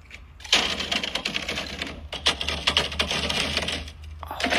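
Ice cubes clattering rapidly against each other and a container, starting about half a second in and stopping shortly before the end.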